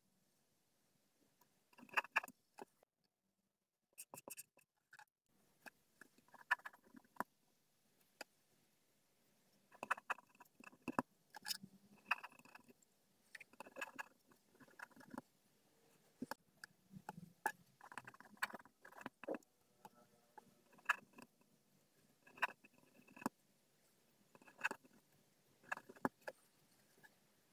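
Pen writing on paper: short bursts of scratching strokes as words are written, with brief pauses between words.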